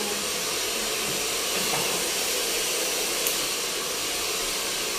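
Steady airy hiss of a hair dryer running in the salon, with one short snip of hair-cutting scissors about three seconds in.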